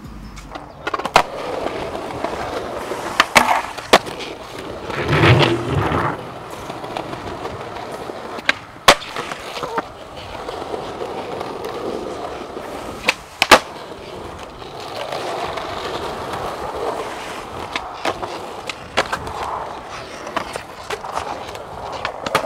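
Skateboard wheels rolling over asphalt, a steady grinding rumble with a louder, rougher stretch about five seconds in. It is broken by sharp clacks, a few in the first half and several more near the end.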